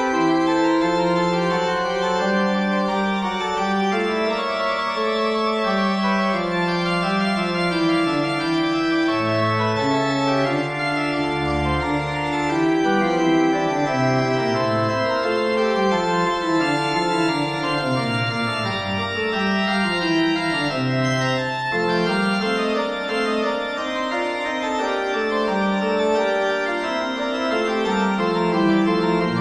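Organ music playing a fugue: several melodic lines moving against each other over a stepping bass line, at a steady level.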